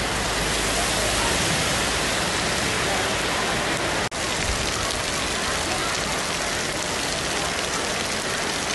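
Heavy rain falling steadily on a road and roadside vegetation, a dense, even hiss. It cuts out for an instant about four seconds in.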